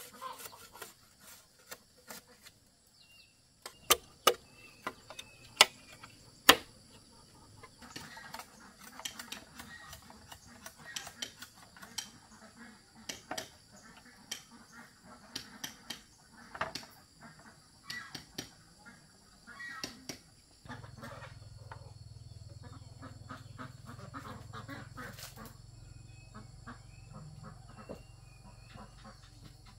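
Sharp knocks of a knife chopping bamboo, four loud strokes a few seconds in, with chickens clucking around a farmyard. About two-thirds of the way through a steady low rumble sets in.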